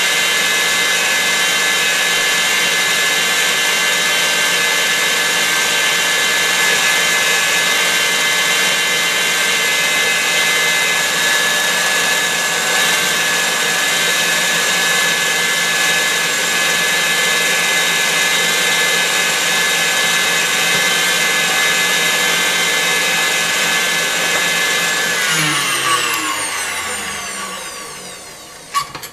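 KitchenAid Heavy Duty stand mixer running at top speed with its wire whisk whipping egg whites: a steady motor whine. Near the end it is switched off and the whine falls in pitch as the motor winds down, followed by a couple of sharp knocks.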